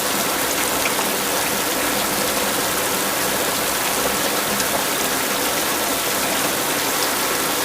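Steady heavy rain falling, a dense even hiss with a few separate drop ticks.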